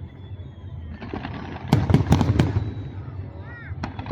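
Aerial fireworks bursting: a rapid cluster of sharp bangs about two seconds in, then a single bang near the end, over a steady low rumble.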